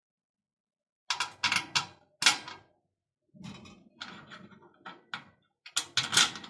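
Clicks and clatter of hard parts being handled as a mechanical vending machine is fastened down onto its mounting box. They come in several short clusters after about a second of silence, softer in the middle and loudest near the end.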